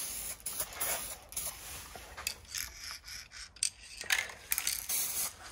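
Aerosol can of two-component (2K) polyurethane car paint spraying, hissing in short bursts as it is passed over the car roof in light coats. It pauses in the middle and starts again about four seconds in.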